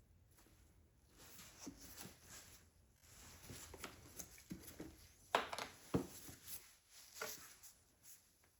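Light handling noises at a workbench: irregular taps, scrapes and rustles, with two sharper knocks about five and a half and six seconds in.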